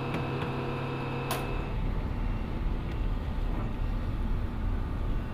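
Steady machinery hum on an aircraft maintenance ramp. A click comes about a second and a half in, after which the hum gives way to a steady low rumble.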